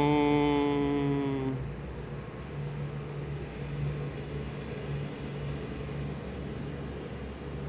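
A man's drawn-out hesitation, 'uhhh', held on one pitch for about a second and a half at the start, then a steady low background hum.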